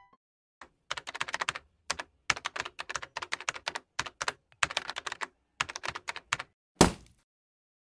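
Computer-keyboard typing sound effect: runs of rapid key clicks in bursts, with short gaps between them, over about six seconds. It ends with one louder click near the end.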